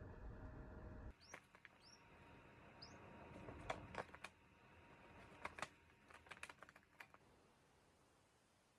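Cockatiel chick giving three short, faint rising chirps, followed by a scatter of small sharp clicks and taps in the cage.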